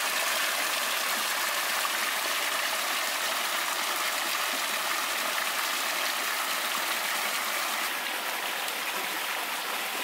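Pool water feature: water pouring steadily from a spout in a tiled wall and splashing into the pool, a little quieter near the end.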